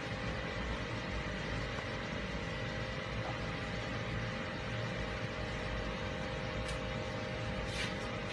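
Car engine idling steadily as the car creeps slowly forward at low speed, under an even hiss with a few constant hum tones.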